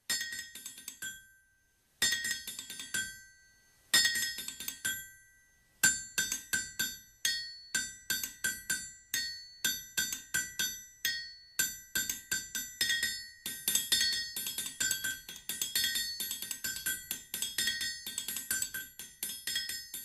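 Instrumental music of ringing, struck metallic percussion: three single strikes about two seconds apart, then a steady, quicker rhythm of strikes from about six seconds in.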